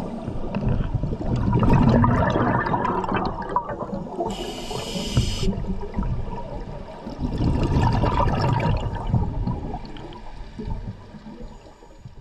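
Scuba diver's regulator underwater: exhaled bubbles gurgling for a couple of seconds, a short hiss of inhaling a little over four seconds in, then a second long exhalation of bubbles.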